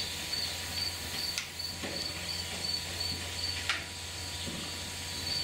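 An insect chirping in a steady, even rhythm of about three high-pitched pulses a second, over a low steady hum.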